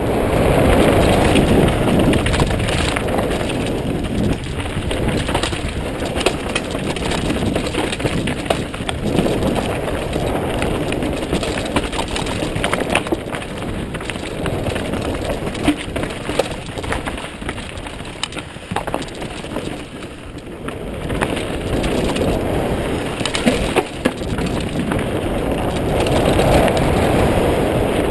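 Mountain bike ridden fast over rocky singletrack: a steady rush of wind on the microphone with tyres crunching over rocks and a constant run of sharp knocks and rattles from the bike taking the bumps.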